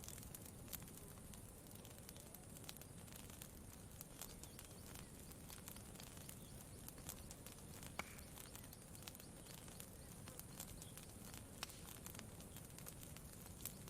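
Campfire crackling softly with scattered irregular pops, the sharpest about eight seconds in, over a low steady wash of gently lapping lake water.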